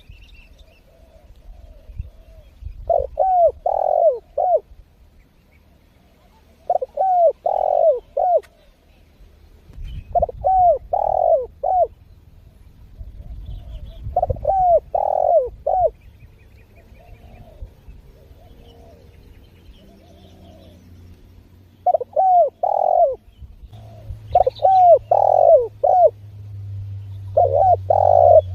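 Spotted doves (derkuku) cooing: a repeated phrase of three or four coos every few seconds, with fainter coos in between.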